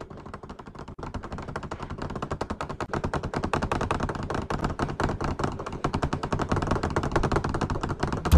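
A school bench rattling in a fast, steady clatter of many knocks a second, growing louder throughout: a student trembling with fear so hard that his seat shakes.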